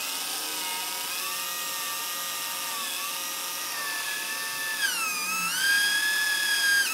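Electric drill with a small bit drilling a screw hole through a thin steel strip, its motor whining steadily. The pitch dips and recovers about five seconds in, and the drill cuts off at the end.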